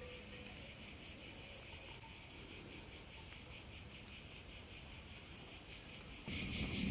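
Crickets chirping, a steady high pulsing trill. Near the end it gets louder and a low rushing noise joins in.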